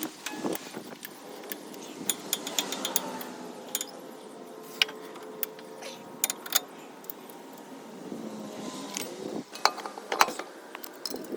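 Irregular metallic clicks and clinks, like hand tools and metal parts being handled during work on a car's axle, with a faint steady hum behind them.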